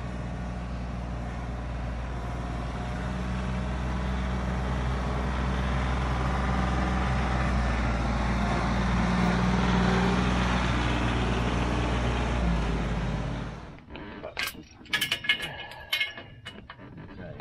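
RK 37 compact tractor engine running steadily as the tractor drives, getting a little louder toward the middle. It cuts off suddenly about fourteen seconds in, and a few sharp metallic clinks follow.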